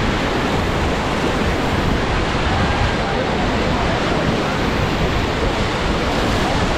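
Rushing white water of river rapids around a raft, a steady loud roar.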